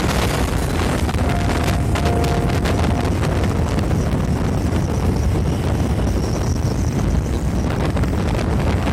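Wind buffeting the microphone, a loud steady rush strongest in the low end, over heavy monsoon rain. A faint steady tone sounds briefly about a second in.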